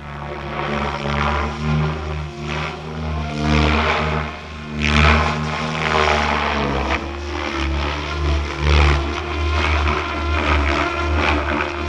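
Goblin 700 radio-controlled helicopter in flight: steady rotor drone with a pitched whine that shifts with its manoeuvres. Rushing blade noise swells and fades, loudest about five seconds in and again near nine seconds.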